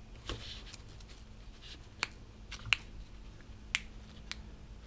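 Clear plastic cling wrap crinkling and crackling as hands press and squeeze a wrapped part, giving a handful of separate sharp clicks; the loudest comes near the middle.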